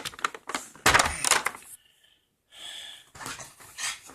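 Packaging being handled for unboxing: rustling, scraping and a few knocks and clicks, loudest in a burst about a second in, with a brief pause just before halfway.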